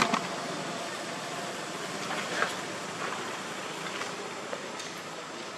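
Steady outdoor background noise with a few short clicks and taps scattered through it.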